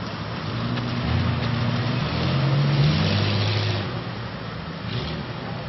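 CJ7 Jeep engine revving as the Jeep drives into a mud bog, rising in pitch and getting louder to a peak about three seconds in, then dropping back. Water and mud splash with the loudest revving.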